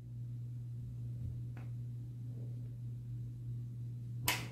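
Quiet room tone under a steady low hum, with a faint tap about a second and a half in and a sharper click near the end.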